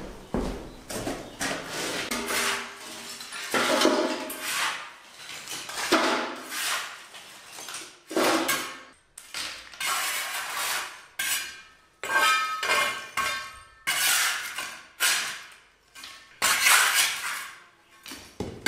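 Broken lime plaster being scraped across a tiled floor with a trowel and dropped into a copper pot: repeated gritty scrapes, and clinks and rattles as the pieces land in the metal pot, some with a short ring.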